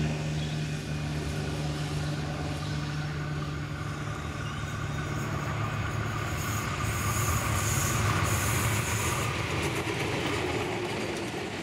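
Adelaide 2000 class 'Jumbo' diesel railcar set approaching and passing, its engines running steadily under a rumble of wheels on rail that grows louder as it nears. A high squeal joins for a few seconds around the middle.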